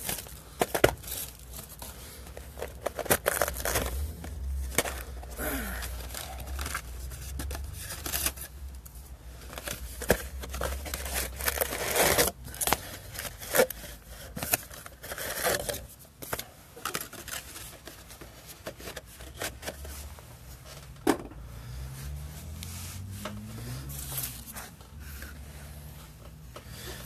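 Trading-card packaging being opened and handled: wrappers and plastic crinkling and tearing, with irregular sharp clicks and snaps.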